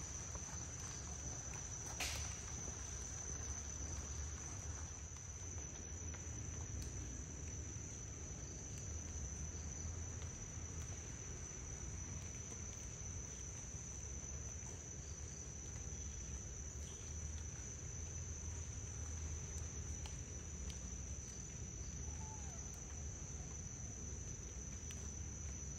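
Forest insects droning steadily as one continuous high-pitched tone, over a low rumble, with a single click about two seconds in.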